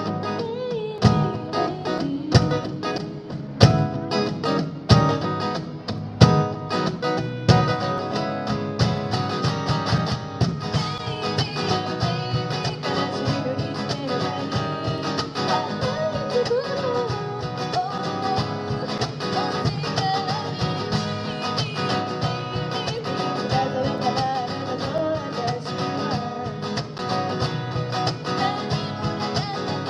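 Live acoustic guitar music: sharp accented strums for the first several seconds, then steadier strummed accompaniment under a wavering melody line.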